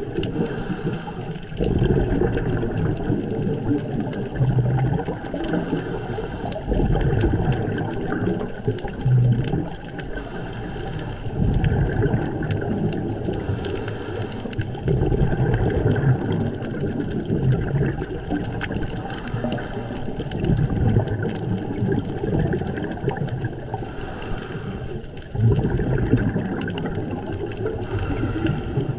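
Underwater sound of a scuba diver breathing through a regulator: a short hiss of inhalation about every four to five seconds over a steady rumbling gurgle of exhaled bubbles.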